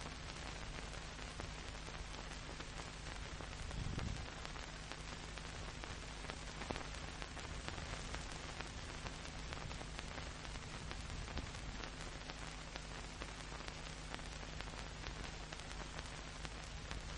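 Steady hiss and low hum of an old film soundtrack, with scattered faint clicks and one soft low bump about four seconds in.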